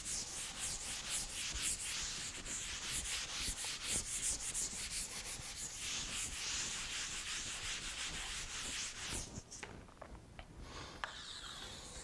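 Felt chalkboard eraser rubbed back and forth across a blackboard in quick repeated strokes, a rhythmic scrubbing hiss. It dies down about nine seconds in, leaving a few faint ticks.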